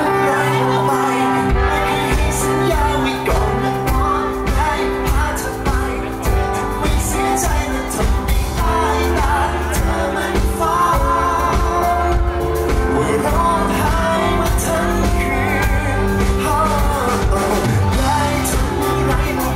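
Live pop band playing with a man singing into a microphone over drums and cymbals; the full low end of the band comes in about a second and a half in.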